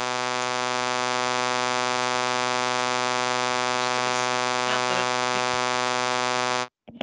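A loud, steady electronic buzz over a video-call audio feed, one harsh unchanging tone that cuts off suddenly near the end: a glitch in a participant's audio connection.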